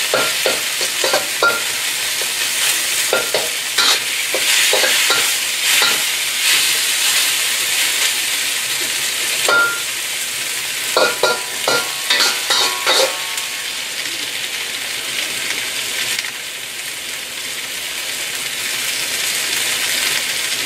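Chicken, onion and chili sizzling in hot oil in a steel wok over high heat, with a metal wok spatula scraping and clinking against the wok now and then as the food is stirred. In the last few seconds the sizzle goes on alone.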